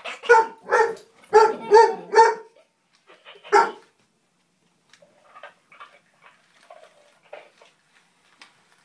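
High-pitched barks from an interactive toy puppy: five quick yaps in a row, then one more about three and a half seconds in.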